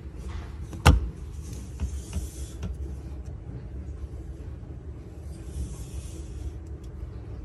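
A hamster rustling through shredded paper bedding in short patches, over a low steady rumble. A single sharp knock about a second in is the loudest sound.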